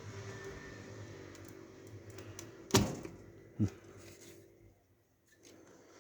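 PC hardware being handled and fitted into the case: two sharp clicks about a second apart, the first louder, as a part snaps into place, over a faint low hum that fades away.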